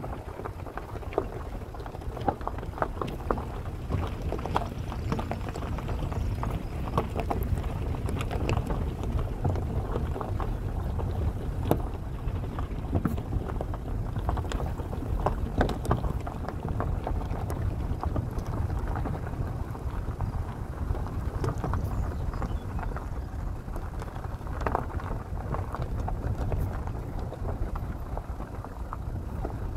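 Vehicle driving along a rough gravel track: a steady low rumble with frequent clicks and knocks from stones under the tyres.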